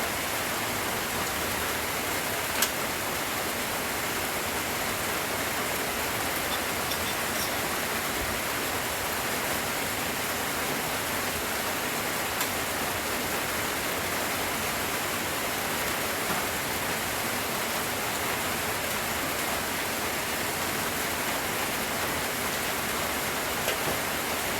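Steady rain falling, an even hiss, with one sharp tick about two and a half seconds in.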